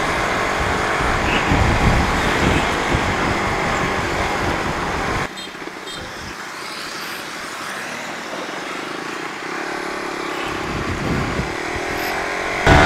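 Suzuki Raider 150 FI single-cylinder engine running under way, mixed with wind and road rush. About five seconds in the rush drops suddenly and the engine goes quieter. The engine note then rises gradually, and near the end the sound jumps back up loud with the engine revving.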